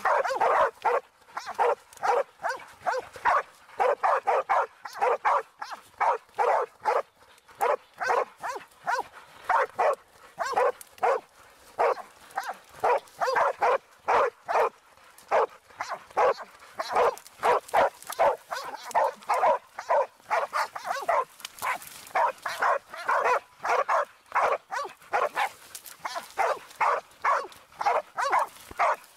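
Pig-hunting dog barking hard and without a break, about two to three barks a second: the bay of a dog holding a wild boar bailed.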